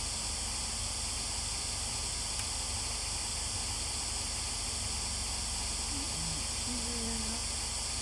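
Steady static hiss from a spirit-box (ghost box) app, with a few faint brief tones about six to seven seconds in.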